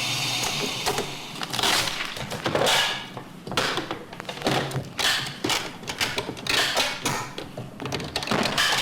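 A steady mechanical noise dies away within the first second. It is followed by a run of irregular knocks, taps and clatter with uneven gaps between them.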